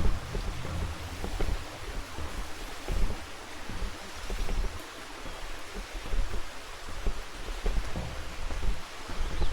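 Steady rushing of water, with gusts of wind buffeting the microphone in irregular low rumbles.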